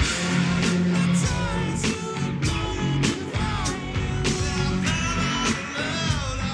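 Live rock band playing: electric guitars, bass and drums with a sung vocal line over a steady beat.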